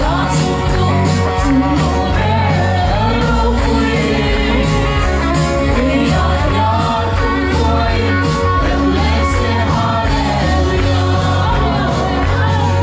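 Gospel song sung with band accompaniment: voices carrying a melody over bass and a steady drumbeat.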